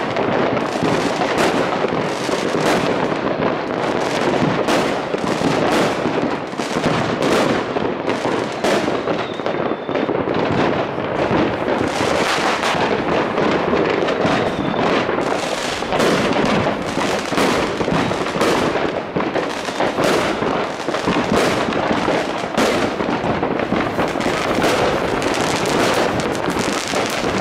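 Many aerial fireworks going off at once: a dense, unbroken barrage of bangs and crackling, several reports every second.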